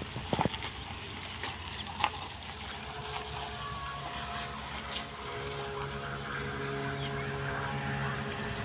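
Hatchback car's engine running as the car drives slowly away over dirt ground, a steady hum that grows stronger about halfway through. A few sharp clicks sound over it.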